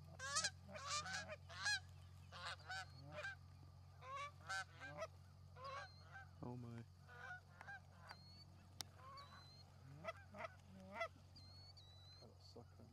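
Geese honking: a faint, irregular run of many short honks through the whole stretch.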